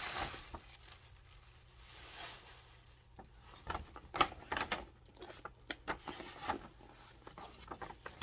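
Packaging rustling and crinkling in short bursts, with a few sharp crackles, as a new handbag is unpacked; the bursts start about three seconds in.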